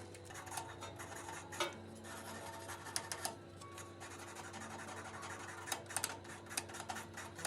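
Scattered light clicks and rubbing from small objects being handled, over a faint steady hum.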